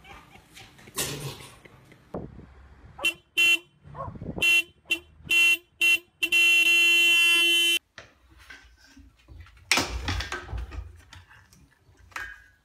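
SUV's car horn sounded by a dog sitting at the steering wheel: about six short honks, then one long steady blast of about a second and a half.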